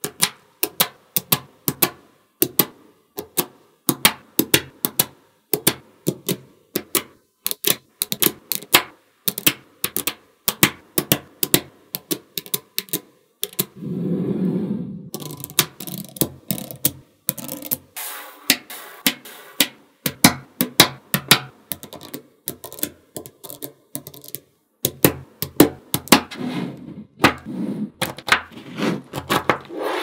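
Small magnetic balls clicking sharply as they snap onto a strip of other balls, in quick irregular clicks, with a longer rustling, jostling stretch about halfway through and again near the end.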